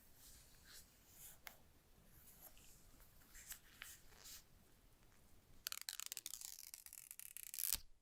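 Phone packaging being handled: scattered light taps and rustles, then about two seconds of dense crackling and tearing near the end that stops abruptly.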